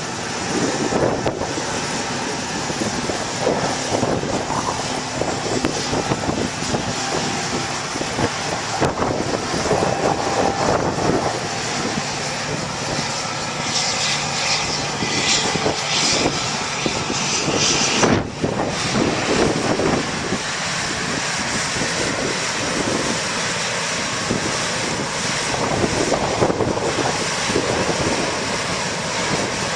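John Deere round-baling cotton picker running as it harvests, a steady engine drone mixed with the rushing noise of the picking machinery, with a brighter hiss for a few seconds around the middle.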